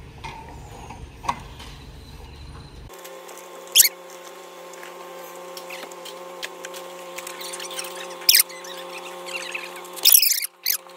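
Rigid PVC pipes squeaking sharply a few times as they slide against each other and into a car boot, over a steady droning tone that begins about three seconds in.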